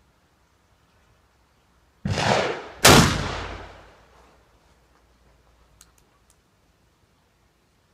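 Feinwerkbau History No.1 black-powder percussion underhammer pistol firing: a first blast lasting nearly a second, then the main shot, louder and sharp, less than a second later, ringing on in the room as it fades. A few faint clicks follow as the pistol is handled.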